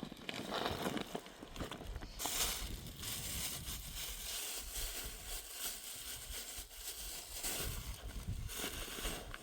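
Irregular crunching and rustling of steps over stony, brushy ground, with a steady hiss of wind or moving vegetation.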